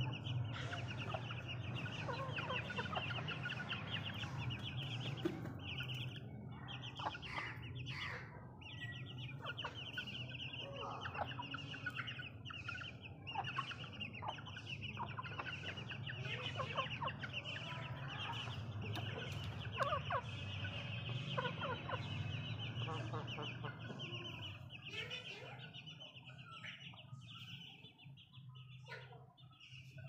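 Aseel chickens clucking in short, irregular calls. Behind them run a steady low hum and a continuous high chirring, both fading near the end.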